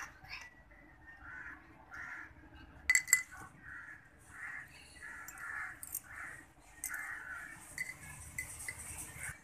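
Crows cawing, a run of short, harsh calls repeated every half second or so, with two sharp clicks about three seconds in.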